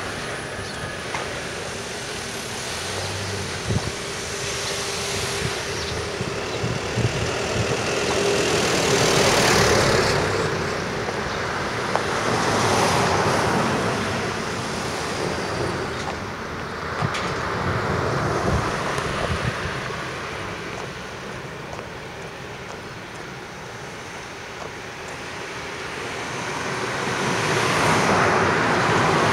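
Road traffic: cars passing one after another. Each car rises and fades over a couple of seconds, about four passes in all, the last near the end.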